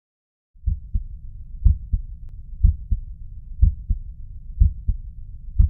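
Heart sounds as heard by auscultation, starting about half a second in: paired lub-dub beats at about one a second over a low, steady hiss.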